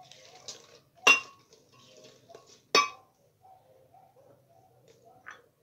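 Two sharp, ringing clinks of dishware about a second and three seconds in, as chopped bell peppers are tipped from a plate into a glass blender jar, with faint handling noise between.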